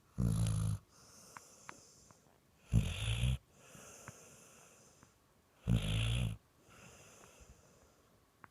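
A dog in deep sleep snoring like a person: three loud, low snores about three seconds apart, each about half a second long, with quieter breathy exhales between them.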